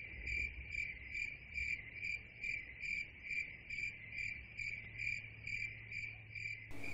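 Cricket chirping steadily at night, about two and a half high-pitched chirps a second, stopping shortly before the end.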